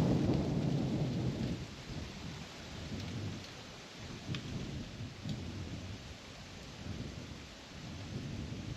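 Distant thunder rumbling, loudest in the first second and a half and then rolling on in softer waves, over a steady hiss.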